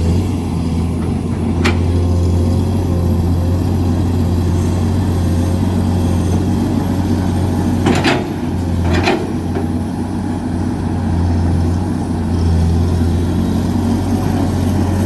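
Heavy diesel machinery engine running steadily at a low hum, with a sharp knock near the start and two louder knocks about halfway through.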